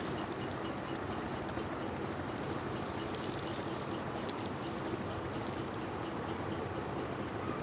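Steady, fast, even ticking, several ticks a second, over a constant hiss and faint hum of room noise.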